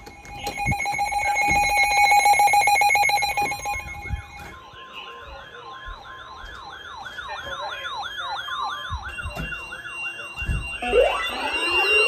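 Several weather alert radios sounding their alarms at once for a newly received warning: a rapidly pulsing alarm tone for about four seconds, then fast warbling siren-like alert tones, with more rising sweeps joining in near the end.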